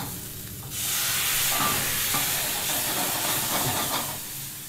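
Prawns sizzling in a hot frying pan. About a second in, a louder, steady hiss starts as spirit is poured in and the pan is flambéed, and it fades near the end.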